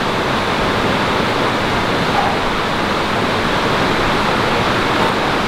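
Steady rush of fast-flowing water, a constant even noise with no break.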